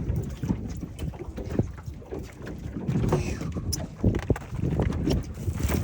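Wind buffeting the microphone in an uneven low rumble, with a few light knocks.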